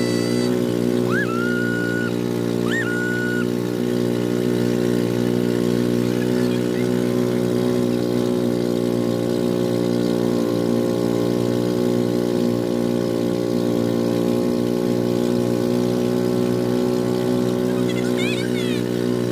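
Engine of a motorized outrigger boat running steadily at cruising speed, a constant drone with no change in pitch. Two brief high rising tones sound over it about one and three seconds in.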